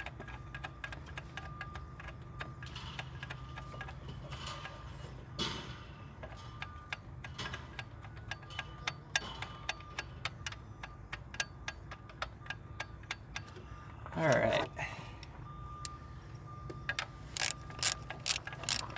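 Hand ratchet wrench clicking in quick strokes near the end as the new alternator's mounting bolts are run in, over fainter steady clicking and a low hum. About two-thirds of the way through, a brief louder sound falls in pitch.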